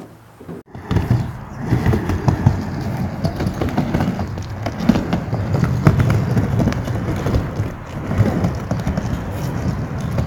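Skateboard wheels rolling across a plywood skate ramp: a steady low rumble with scattered light clicks and knocks, starting about a second in.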